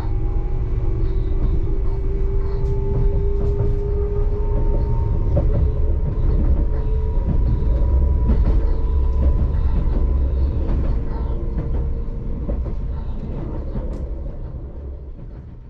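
Inside a passenger train running along the track: a steady low rumble with a faint whine that rises slowly in pitch, and scattered clicks from the rails. The sound fades out near the end.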